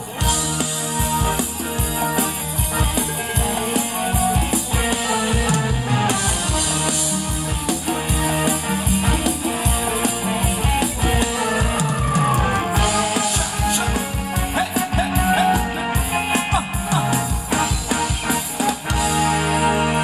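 Thai ramwong circle-dance music from a live band, with a drum kit keeping a steady, even beat under guitar and other instruments.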